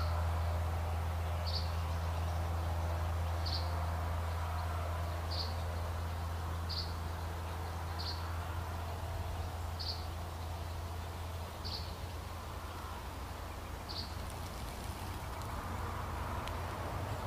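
A short, high chirp repeats every second or two over a steady low hum. The hum eases off about two-thirds of the way through.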